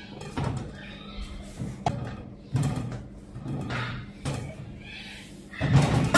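Irregular thumps and knocks, about one a second and loudest near the end, over a faint steady low hum.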